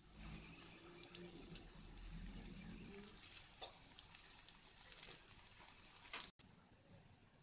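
Faint sizzle and crackle of whole brinjals frying in oil in a pan, cutting off abruptly near the end.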